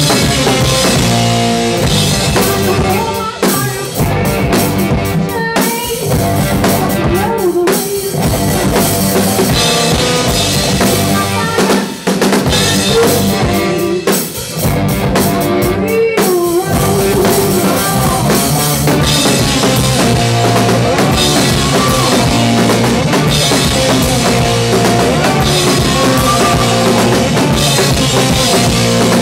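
Live rock band playing with the drum kit loudest: kick drum, snare and cymbals driving under sustained pitched instrument notes, with a few brief stops in the beat.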